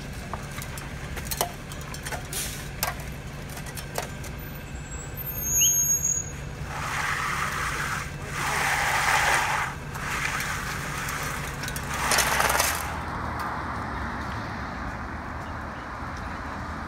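Concrete mixer truck engine running steadily while wet concrete is discharged down its chute, with shovels knocking and scraping in the concrete and three hissing rushes about a second long. The truck sound stops about two-thirds of the way through, leaving a quieter, even outdoor background.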